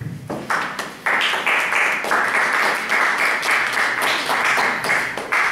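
Audience applauding, many hands clapping at once, swelling about a second in and dying away at the end.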